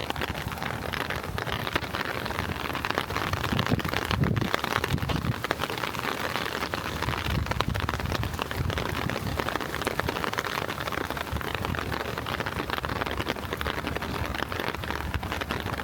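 Steady rain pattering in a dense crackle of drops, with a couple of low rumbling swells partway through.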